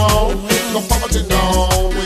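Reggae music with a pulsing bass line and instrumental backing, no singing.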